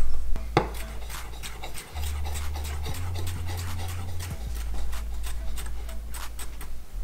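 Chef's knife dicing cucumber on a wooden cutting board: a run of quick knife taps against the board, several a second.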